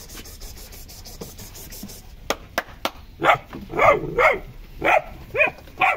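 Fila Brasileiro puppies barking and yelping in short calls, about half a dozen in quick succession in the second half, after a few sharp clicks.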